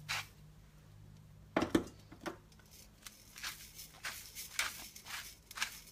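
Handheld grinder being twisted to grind salt and pepper: a run of short, dry rasping strokes, a few a second, with a louder knock about a second and a half in.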